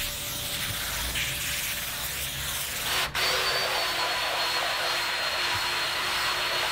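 A spray wand hisses as cleaner is sprayed onto a carpet floor mat. After a sudden break about three seconds in, a cordless drill spins a scrub brush on the carpet, its steady motor whine over the scrubbing of the bristles.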